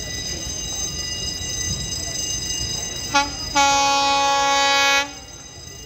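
Train horn of an approaching train: a short toot about three seconds in, then a loud, steady blast held for about a second and a half that cuts off sharply.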